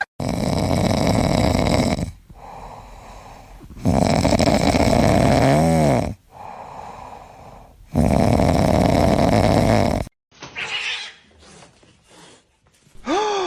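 An animal snoring loudly: three long snores of about two seconds each, roughly four seconds apart, with quieter breaths in between. About ten seconds in the sound cuts to brief, quieter noises and a short high cry near the end.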